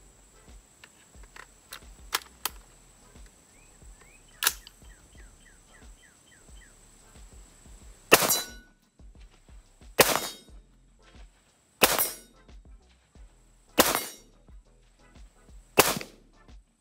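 Ruger AR-556, a 5.56 mm AR-15-type semi-automatic rifle, firing five single shots about two seconds apart; each is a sharp crack with a short tail. A few light clicks and a softer knock come before the first shot.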